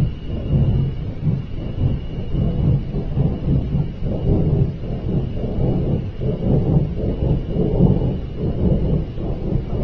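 Loud, low rumbling roar that surges and fades without a break, with a faint steady high tone above it. It is an unexplained noise that the person filming likens to a giant flame.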